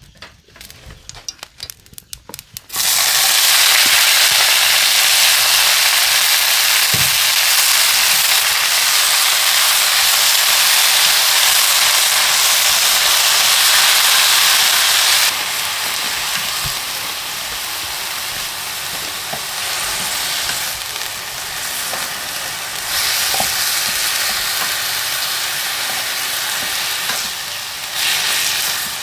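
Sizzling, as of food frying in hot oil. A few crackles give way to a loud, dense sizzle that starts suddenly about three seconds in. About halfway through it drops to a lower, more uneven sizzle.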